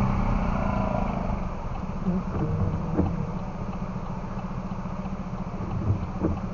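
Steady low rumble of a car's engine and tyres heard from inside the cabin while driving, with a few light knocks.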